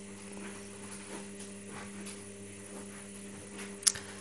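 Quiet room tone with a steady low hum, and one short sharp click near the end.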